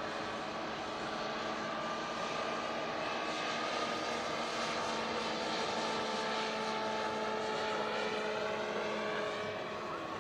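Turbine-powered scale RC helicopter (a REGA EC-145 model) flying past: a steady turbine whine over rotor noise, with its tones sliding slowly down in pitch during the second half.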